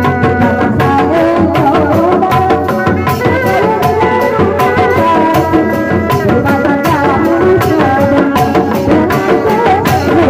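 Sundanese dog-dog procession music: large barrel drums slung from bamboo poles, beaten by hand and with padded sticks in a dense, steady rhythm, under a wavering melody line.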